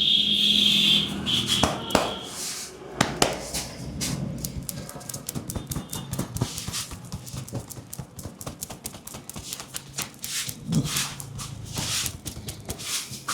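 Hands slapping and tapping on a person's head and shoulders during an Indian barber head massage: a rapid, irregular run of sharp slaps and taps on skin, with a short high tone in the first second.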